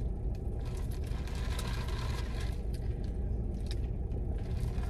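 Sipping a fountain soda through a plastic straw, a hissing draw of about two seconds, over a steady low rumble inside the parked car, with a few light clicks.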